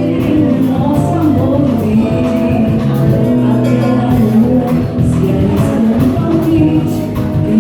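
Live band playing with singing.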